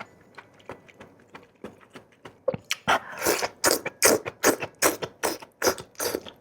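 Close-miked chewing of crunchy food, each crunch a sharp crackle. The crunches are faint at first, then about three seconds in become louder and more regular, at about three a second.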